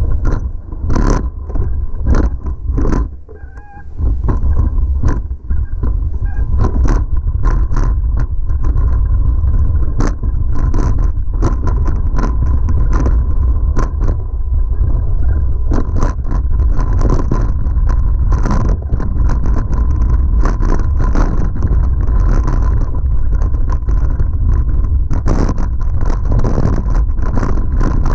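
2011 Giant Trance X0 full-suspension mountain bike rattling down a rocky trail: a constant low rumble of wind and vibration on the microphone, broken by frequent sharp clatters and knocks as the tyres and frame hit rocks. It goes briefly quieter about three seconds in.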